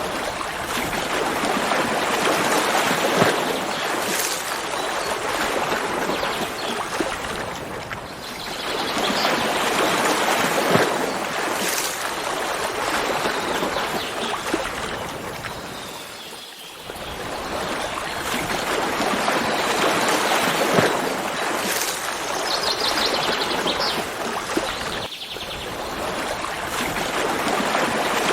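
Running water of a forest stream, a steady rushing that swells and ebbs, dropping away briefly about every eight seconds.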